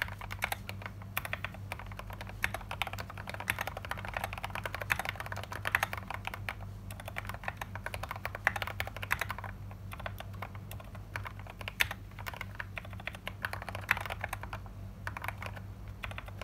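Typing test on a customised VX8 mechanical keyboard with NovelKeys H1 switches lubed with Krytox 205 and filmed, lubed band-aid-modded stabilizers, a black acrylic case and SA-profile keycaps: a fast, continuous run of keystrokes with a few short pauses.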